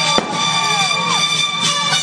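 A firework shell bursts with one sharp bang just after the start, followed by several falling whistle-like tones, over loud music played for the show.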